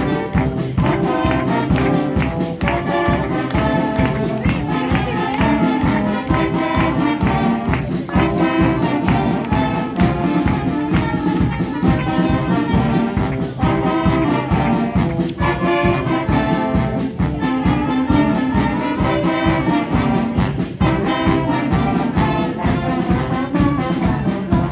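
Live band of saxophones, trumpets and trombone playing a tune together over a steady drum beat.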